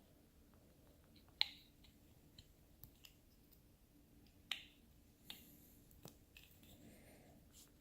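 Quiet handling of small metal parts and a screwdriver while a phonograph reproducer is taken apart: a few sharp light clicks, the two loudest about a second and a half and four and a half seconds in.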